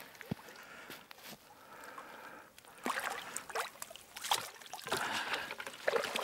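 Water splashing and sloshing in the shallows as a hooked carp is drawn to the bank and netted. The splashes are irregular and grow louder and more frequent about three seconds in.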